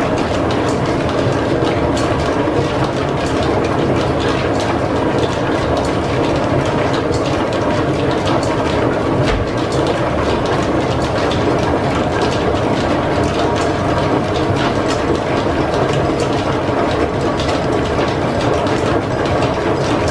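Line-shaft-driven metal lathe running with its four-jaw chuck turning a steam engine piston rod for thread cutting, giving a steady clatter of gears and fine ticking.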